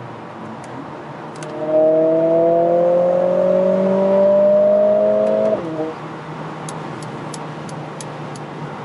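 Mercedes-AMG CLA 45 S's turbocharged 2.0-litre four-cylinder, heard from inside the cabin, pulling hard under acceleration. About two seconds in, its note climbs steadily for some four seconds, then drops suddenly at an upshift and settles to a steady cruising drone. Faint rapid ticking comes near the end.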